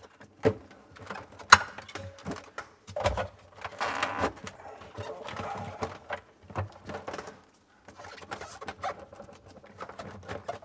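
Plastic evaporator fan panel of a Samsung Twin Cooling Plus refrigerator being pressed into place against the liner, its corner clips clicking in: a run of sharp plastic clicks and knocks, the loudest about one and a half seconds in, with plastic scraping and rubbing around four seconds in.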